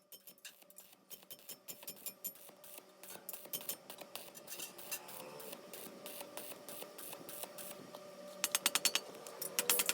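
Stick welding arc crackling irregularly as the electrode burns, growing louder, with a faster, denser run of crackles near the end.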